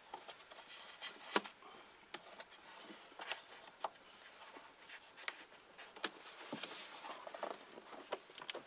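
Sparse light clicks and taps of a plastic engine air filter housing cover being handled and worked back into place, over faint rustling; the sharpest click comes about a second and a half in.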